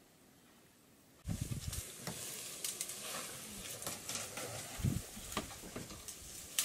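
Near silence for about a second, then steady crackling and rustling with scattered sharp snaps and a couple of low thumps, as of an elephant pulling at dry branches and leaves.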